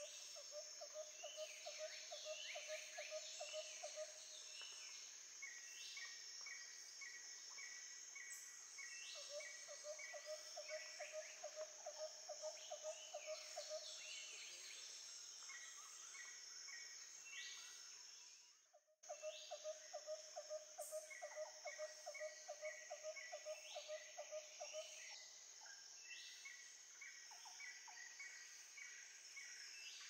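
Faint nature soundscape of repeated bird calls: a fast low trill lasting a few seconds at a time, runs of short even notes, and rising whistles, over a steady high-pitched hum. The sound drops out briefly about two thirds through, then carries on.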